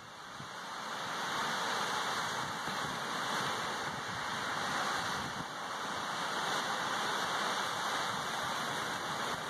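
Lake Superior surf washing onto the beach: a steady rush of breaking waves that swells over the first couple of seconds and then rises and falls gently.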